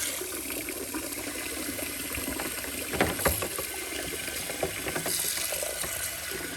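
Portable mini dishwasher running, churning and sloshing the water in the sink around the dishes, with a couple of sharp knocks about three seconds in.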